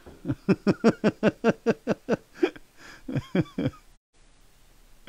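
A man laughing heartily: a quick run of about a dozen "ha" bursts, then a couple more a little later before it trails off.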